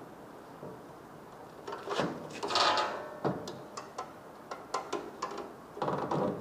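Hands handling tools and parts at the workbench: scattered clicks and knocks, with a louder scraping clatter about two and a half seconds in and another burst of knocks near the end.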